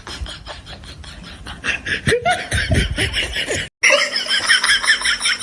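People laughing in quick repeated bursts, broken by a sudden brief dropout about two-thirds of the way through, after which laughing continues.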